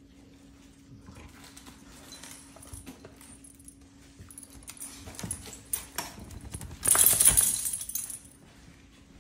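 Puppies wrestling on a tile floor: claws clicking and scrabbling on the tiles, growing busier as the play goes on, with a louder scuffling burst lasting about a second near the end.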